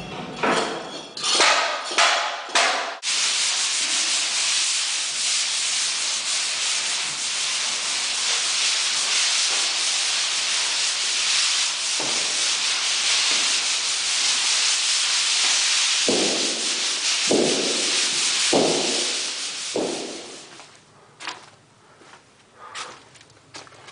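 Sanding: a few separate scratchy strokes, then a steady high-pitched scratchy hiss, with more single strokes near the end before it fades.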